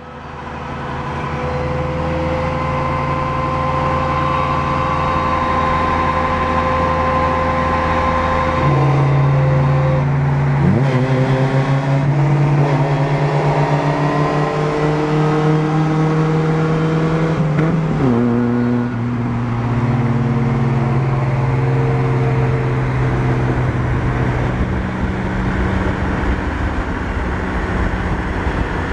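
Vehicle engines running at steady road speed with road noise, the engine drone holding a steady pitch and shifting several times, with two quick rising revs about ten and eighteen seconds in.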